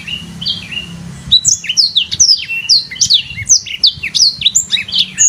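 A songbird singing: a few scattered whistled notes, then from about a second in a fast, unbroken run of sharp whistles, mostly falling in pitch.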